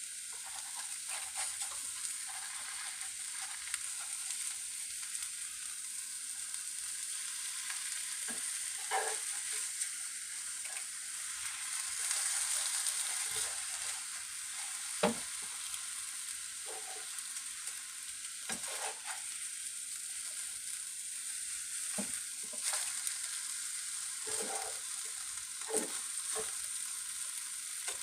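Egg omelette sizzling steadily in a frying pan on medium heat, with a few light knocks and scrapes against the pan scattered through, the sharpest about halfway.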